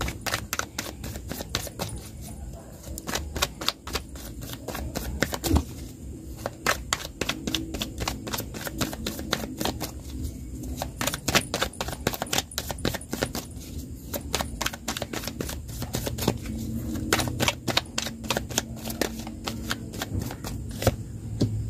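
A deck of tarot cards being shuffled in the hands: a rapid, irregular patter of card clicks that comes in runs with a few short pauses between them.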